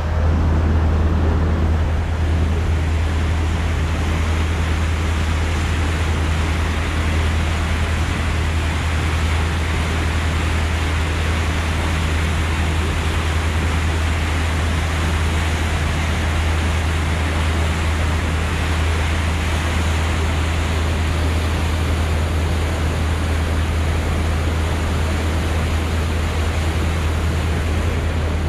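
Harbour ferry's engine running with a steady low drone, over the rushing of water churned up in the boat's wake.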